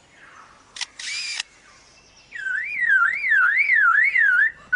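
Superb lyrebird mimicking a camera with a motor drive: a shutter click about a second in, then a brief mechanical whir. A little past two seconds in it switches to mimicking a car alarm, a loud wailing tone rising and falling about three times a second.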